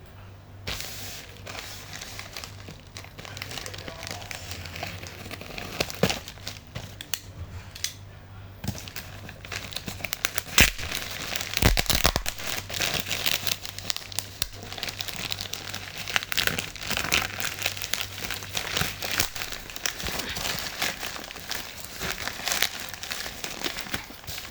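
Plastic and paper packaging being handled, crinkled and torn open, with a few sharp knocks and clicks along the way.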